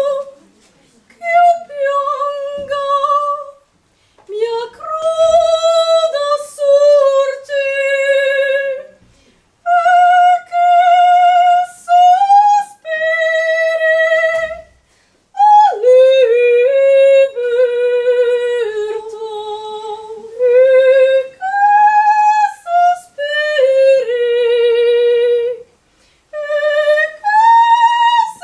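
A woman singing solo and unaccompanied, holding long high notes with vibrato, in phrases broken by short pauses for breath.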